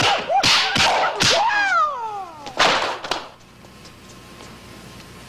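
Kung-fu film fight sound effects: sharp punch and kick hits with swishes, and a man's cry that falls in pitch about a second and a half in. A last loud hit comes at about two and a half seconds, then it goes much quieter.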